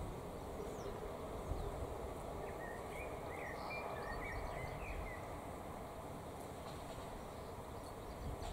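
Bees buzzing around flowering lavender, with wind rumbling on the microphone. A few short high chirps come in near the middle.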